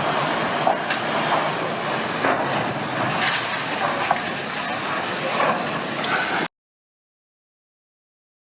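A steady rushing noise with scattered brief crackles, which cuts off abruptly about six and a half seconds in to dead silence.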